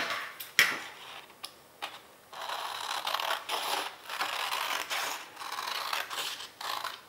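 Scissors cutting through colored paper along a folded crease: a run of crisp snips about one a second from around two seconds in, after a click and some paper handling at the start.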